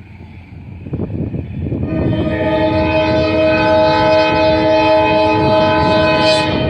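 Diesel locomotive air horn, an ALCO RS-11, blowing one long, steady multi-note blast that starts about two seconds in, over low wind rumble.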